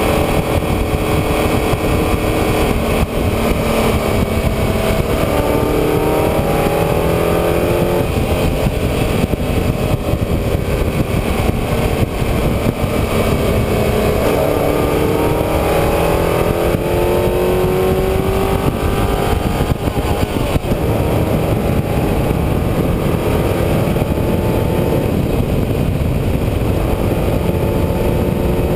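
A motor vehicle's engine running on the move, its pitch rising and falling several times as the revs change, over a steady loud rush of wind and road noise.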